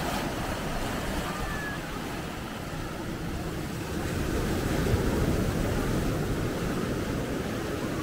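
Sea surf washing onto the shore, mixed with wind rumbling on the microphone; the surf swells a little about halfway through.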